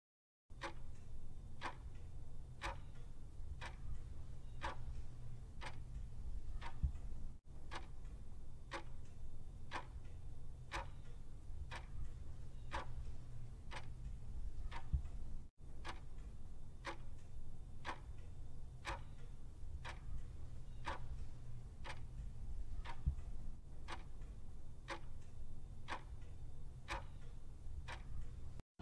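Ticking-clock sound effect marking a 30-second countdown timer, with steady regular ticks about two a second over a faint low hum.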